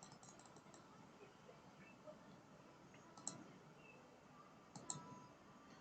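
Faint computer mouse clicks over near silence: a few near the start, one about three seconds in, and two close together near the end.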